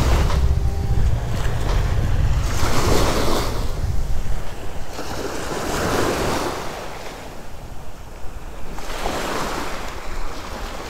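Small waves breaking and washing up a sandy beach, the surf swelling and fading every couple of seconds. Wind buffets the microphone with a low rumble, heavier in the first half.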